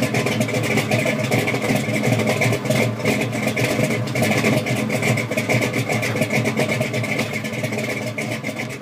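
Car engine running loudly with a rapid, rough pulsing.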